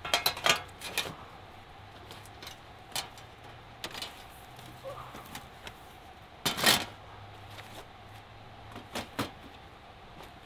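Scattered sharp clicks and knocks of objects being handled, with a quick cluster in the first second and the loudest one about six and a half seconds in, over a faint steady hum.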